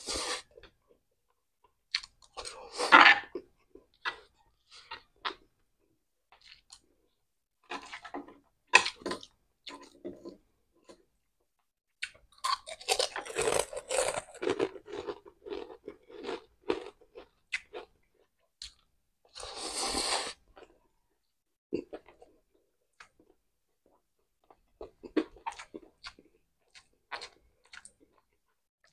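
Close-up chewing and crunching of crispy food, in irregular bursts with short pauses between mouthfuls.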